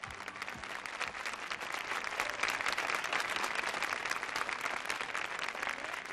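Studio audience applauding after a song ends, the clapping swelling over the first couple of seconds and easing off toward the end.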